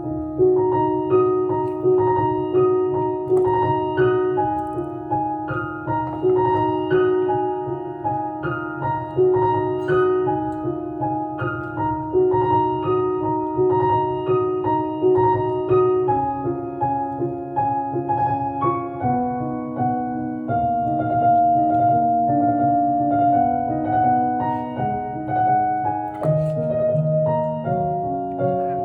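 Background piano music: a gentle melody of repeated notes over a low accompaniment. Faint small clicks run through it.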